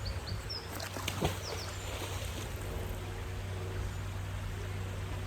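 Outdoor ambience: a steady low rumble, with a few short high bird chirps in the first second and a half and a single knock about a second in.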